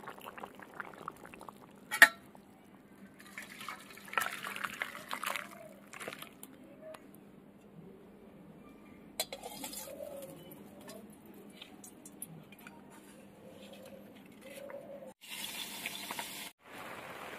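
Fish curry simmering in a kadai, the liquid bubbling, with one sharp knock about two seconds in.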